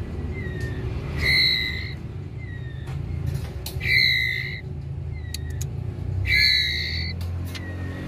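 11-day-old white-rumped shama chicks begging while being hand-fed: three harsh calls about two and a half seconds apart, with short, faint notes falling in pitch between them. A steady low rumble runs underneath.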